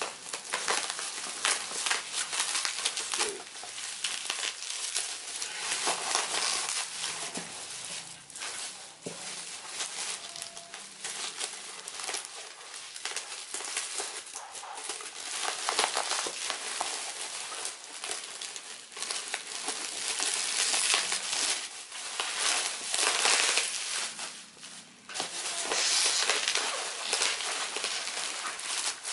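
Plastic bubble wrap, wrapped in a double layer around a parcel, crinkling and crackling as it is pulled off and unwrapped by hand, in an uneven run of rustles and small crackles.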